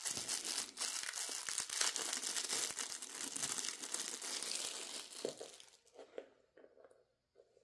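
Packaging crinkling and rustling as the small landing-gear parts of a die-cast model airliner are unwrapped, dying down to a few light clicks and taps near the end.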